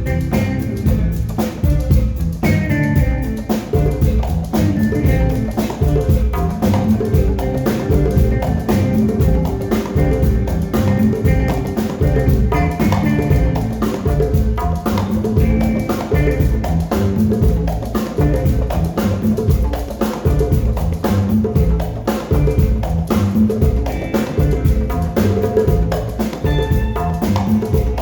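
Live band playing a continuous up-tempo groove, with drum kit and percussion driving a steady beat under pitched instruments, at a sound check.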